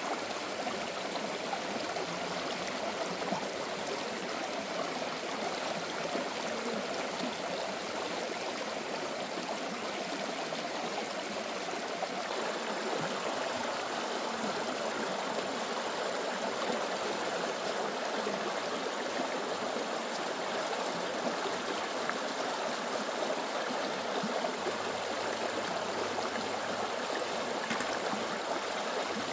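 Stream water flowing steadily over stones.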